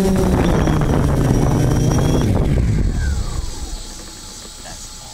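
Quadcopter drone's electric motors and propellers spinning down after being shut off: the whine falls steadily in pitch and fades out about four seconds in.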